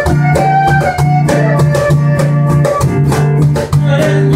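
Instrumental break in a Latin romantic ballad: band music with drum kit beat, bass and guitar.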